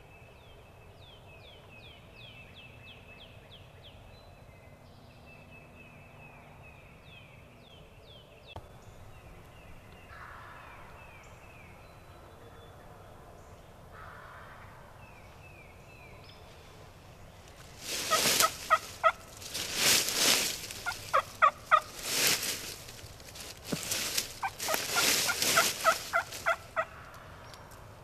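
A wild turkey gobbler gobbling loudly, about five rattling gobbles from about two-thirds of the way in. Before that a songbird's faint, high trills repeat in short series.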